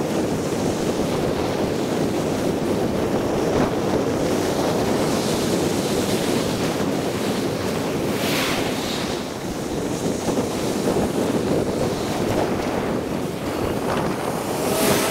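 Wind rushing over the microphone of a camera on a moving bicycle, a steady, heavy noise that swells briefly about eight seconds in.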